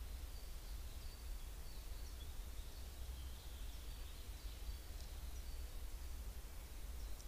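Faint distant birdsong: short high chirps repeating every half second or so, with a brief lower trill midway. Under it runs a low steady rumble from the trail camera's microphone.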